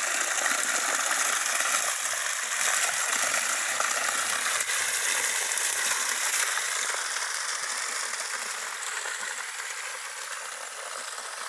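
Water of a small reservoir overflowing across its concrete spillway and splashing down over the edge: a steady rushing, splashing sound that gets a little fainter near the end.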